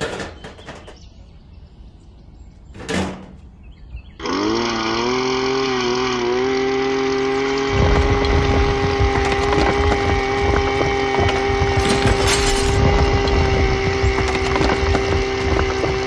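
A few clicks and a quick whoosh, then about four seconds in a small electric motor spins up to a steady whine. About three seconds later a rough grinding joins it as the toy tractor's spinning cone drill bites into the rock, chipping it.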